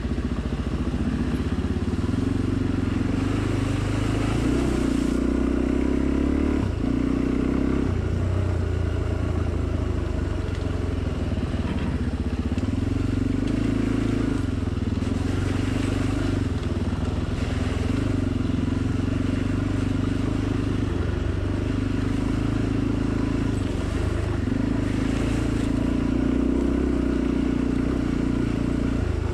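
Off-road motorcycle engine running under the rider, heard from on board. The revs rise and fall, with brief throttle-offs several times.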